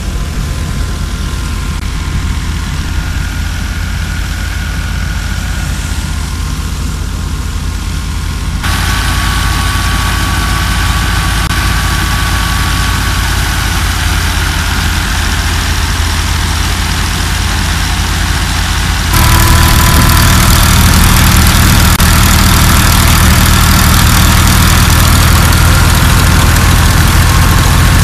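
Tractor diesel engine running steadily under load as it drives a wheat thresher: a low engine drone with a steady higher whine over it from the turning machinery. It grows louder about a third of the way in, and louder again about two-thirds in.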